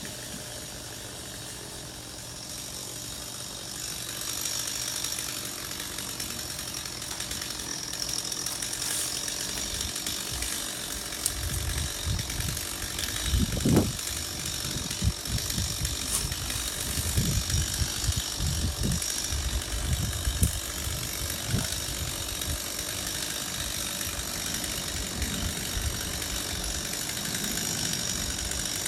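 Tree-trimming power equipment running steadily, engine-like, with irregular low thuds starting about a third of the way in.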